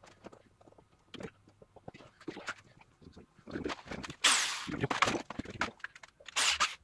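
Handling noises while working on the armchair: scattered knocks and scrapes, then a loud rasping noise about four seconds in that lasts about a second, and a shorter one near the end.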